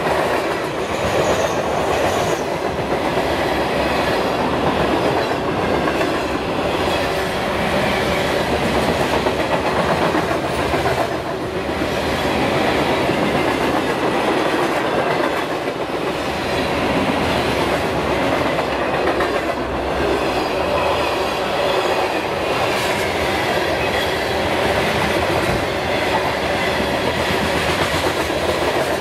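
CN mixed freight train's cars (boxcars, covered hoppers, tank cars) rolling past close by: a steady rolling noise of steel wheels on rail that holds at the same loudness throughout.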